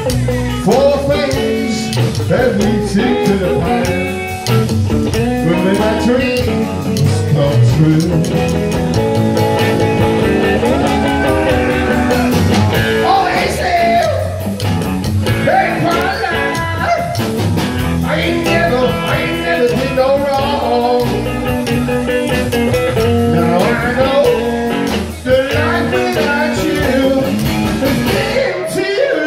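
Live rockabilly band playing a bluesy number, with guitar and singing over a steady drum beat.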